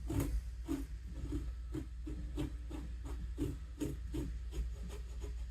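Rhythmic rubbing, about two short strokes a second.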